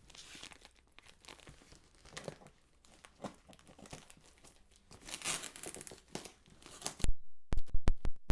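Packing tape being torn and peeled off a cardboard box, with irregular crinkling and ripping. Near the end come several sharp, loud knocks against the box.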